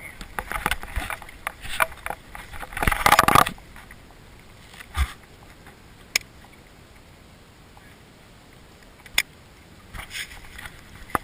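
Handling noise of fishing gear in a small boat: rustling, scraping and knocking for the first few seconds, ending in a loud dense scrape about three seconds in, then a few single sharp clicks.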